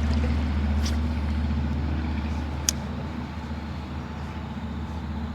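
A motor vehicle's engine drones steadily and slowly fades, with one sharp click a little past halfway.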